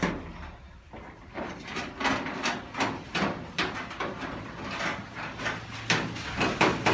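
Sheet-steel inner-wing panel being offered up and fitted to a classic Mini's body: an irregular run of short knocks and scrapes.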